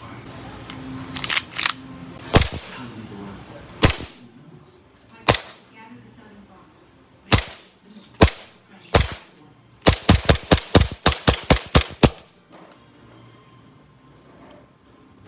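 Full-metal M1911 green gas blowback airsoft pistol firing as sharp pops. Single shots come a second or so apart, then a quick string of about ten shots near the end.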